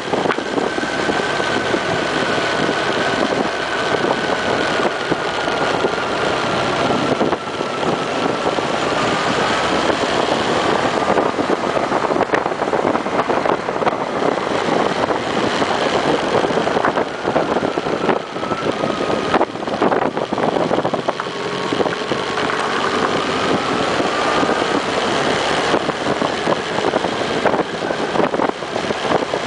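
Honda CB1300's inline-four engine running steadily while riding, mixed with wind and road noise on the bike-mounted microphone.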